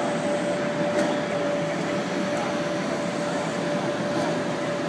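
Steady exhibition-hall din: a constant hum and wash of noise with one held tone running through it, and a single click about a second in.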